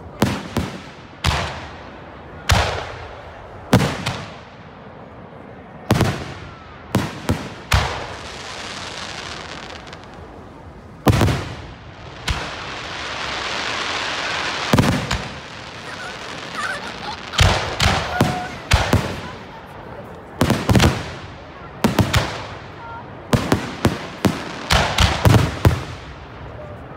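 Aerial fireworks shells bursting one after another with sharp bangs, a few seconds of steady crackling hiss about halfway through, and a quick run of bangs near the end as the display builds.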